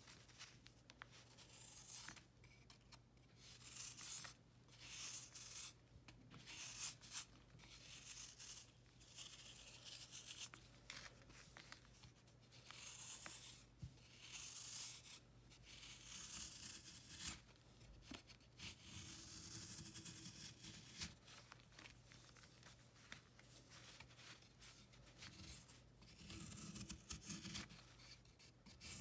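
Snap-off utility knife blade scraping and shaving a pressed block of baking soda, chalk and calcium carbonate, crumbly flakes breaking off in repeated short, faint, gritty strokes.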